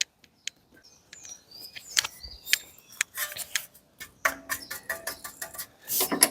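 Birds chirping in short, repeated falling calls, mixed with sharp clicks and taps; about four seconds in, steady held tones like music come in.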